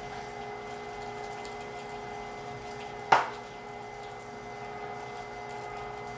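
Carnivore 1-horsepower electric meat grinder running with a steady hum as it pushes ground pork through a stuffing tube into a collagen casing. A single sharp knock about three seconds in.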